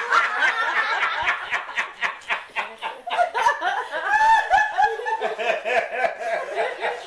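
Several people laughing after a joke's punchline, with one high-pitched laugh standing out in the second half in quick repeated "ha-ha-ha" syllables.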